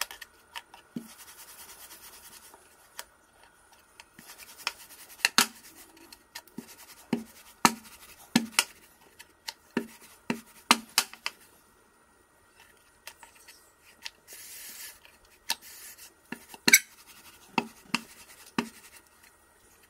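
Rolling pin working tortilla dough: irregular knocks and clicks as the pin is rolled, set down and picked up, with short stretches of rubbing and scraping.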